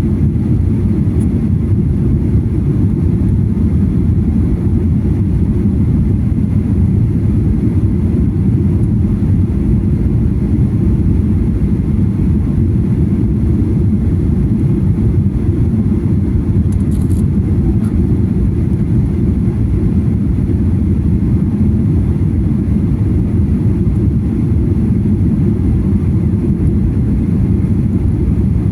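Jet airliner cabin noise during landing: a steady low rumble of engines and airflow, heard from inside the passenger cabin.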